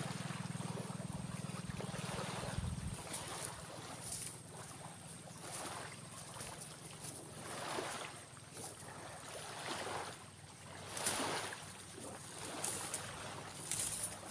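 Digging around the roots of a santigi shrub in beach sand: soft scraping strokes, roughly one a second. A low steady hum stops about three seconds in.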